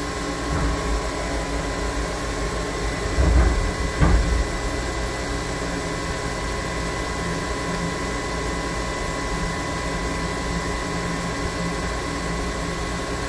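A machine running with a steady hum and a faint high whine, with two short low thumps about three and four seconds in.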